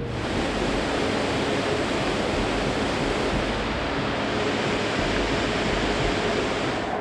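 Steady roar of rushing water from a waterfall, cut in and out abruptly.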